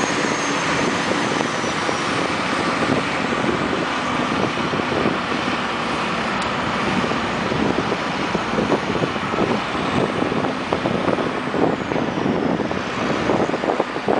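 Steady running noise of heavy road vehicles: an even rush with a faint low engine hum and no sudden events.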